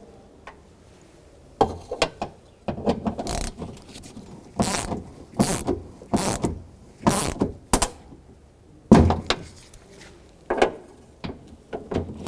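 Socket ratchet clicking through repeated strokes, about one every three-quarters of a second, as it tightens the exterior door handle's mounting bolts, then a few slower strokes near the end.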